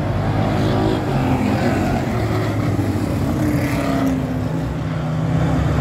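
A pack of dirt-track stock cars racing, their engines running hard, with the pitch rising and falling as the cars go through the turn.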